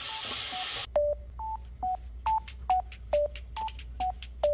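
Asparagus and bacon sizzling in a frying pan, cut off suddenly just under a second in. Then background music: a light melody of short, evenly spaced notes, about two a second, stepping between a few pitches.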